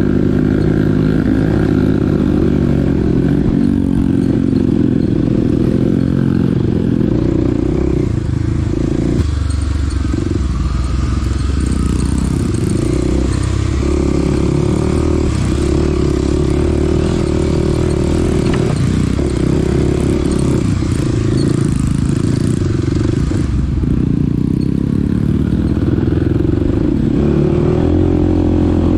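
Mini dirt bike engine running while riding, its pitch rising and falling as the throttle opens and closes.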